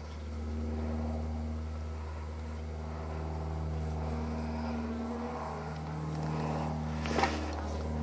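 Bees buzzing around an opened wild hive: a steady hum made of several overlapping, wavering tones. A single sharp knock about seven seconds in.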